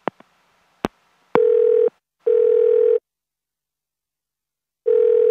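Telephone ringing tone heard down the line as a call is placed: a couple of line clicks, then a double ring of two short steady tone bursts, a pause of about two seconds, and the next double ring starting near the end. The call is ringing at the other end, not yet answered.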